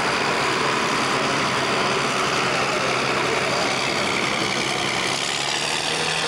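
Ford super stock pulling tractor's turbocharged diesel engine running hard and steady under full load, dragging a weight-transfer sled.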